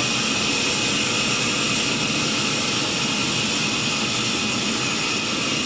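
Sawmill saw running steadily through timber: a continuous, even machine noise with no breaks.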